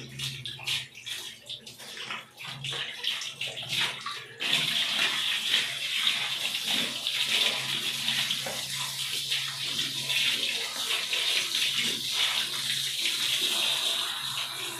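Handheld shower spray running onto a wet dog's coat during a bath. The water sounds patchy and uneven at first, then becomes a steady hiss from about four seconds in.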